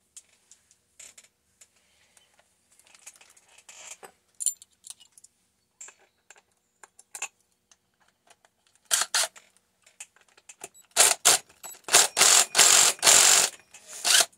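Tools and metal parts of a chainsaw top end being handled during a teardown: scattered light clicks and scrapes, then from about nine seconds in a run of loud rasping bursts.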